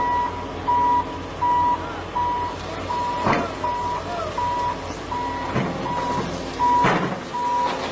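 Heavy machine's reversing alarm beeping steadily, about one beep every three-quarters of a second, over its engine running. Two brief sharp sounds cut in, about three seconds in and near the end.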